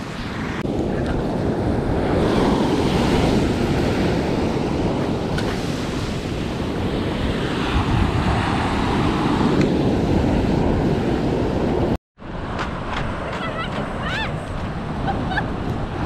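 Ocean surf breaking and washing up the beach in a steady rush, with wind buffeting the microphone. The sound drops out for a moment about twelve seconds in, then resumes.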